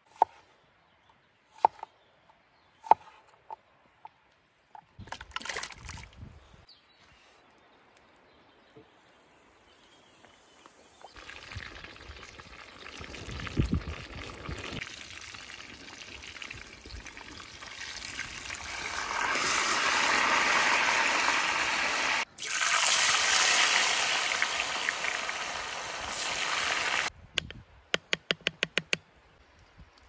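A few sharp knife strikes on a wooden cutting board, then food sizzling in hot oil in a cast iron skillet over a wood fire, the sizzle building to a loud steady hiss through the second half. A quick run of light clicks comes near the end.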